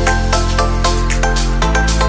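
Background music with a sustained bass line, quick repeating notes and a regular beat. The bass shifts to a lower note near the end.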